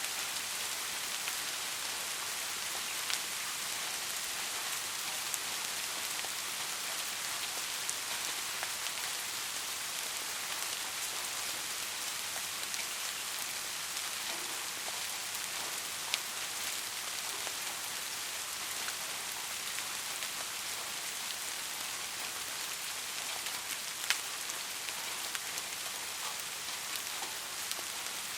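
Steady rain falling, a constant hiss with scattered louder drops ticking on a surface, one sharper drop about 24 seconds in.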